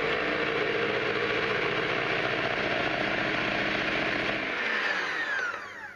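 Electric hand mixer running steadily, its beaters whisking pancake batter as beaten eggs are poured in. Near the end it is switched off and the motor's pitch falls as it spins down.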